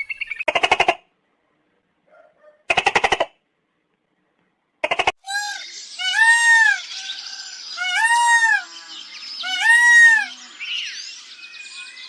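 Animal calls: three short, quavering calls in the first five seconds, then a run of short rising-and-falling calls, about one a second, from about five seconds in.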